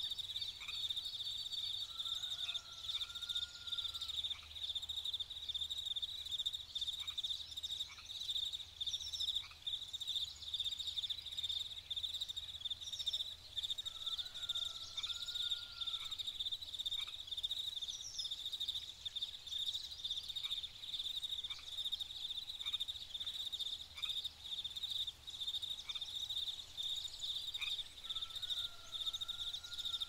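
Steady, high chirring trill of insects running without a break, with scattered faint bird chirps above it. A lower, bending call comes about every thirteen seconds.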